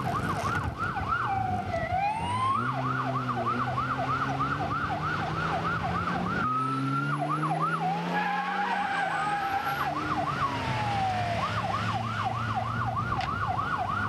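Police car siren in a fast yelp, about four sweeps a second, twice giving way to slower wailing glides, over a car engine speeding up.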